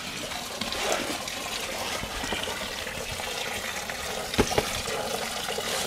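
Engine coolant pouring steadily from a radiator hose outlet and splashing down a plastic chute into a bucket. It flows freely because the reservoir cap is off, which breaks the air seal and lets air into the cooling system. A brief knock sounds about four and a half seconds in.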